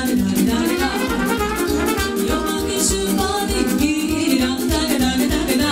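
Live band playing a fast Romanian folk dance tune, with saxophone over a steady bass beat of about four pulses a second.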